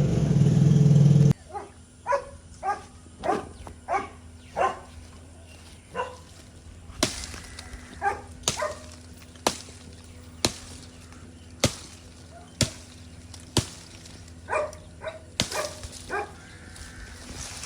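A loud, dense noise that cuts off suddenly about a second in, then short repeated barks, like a dog's, with sharp single knocks, like chops, about a second apart.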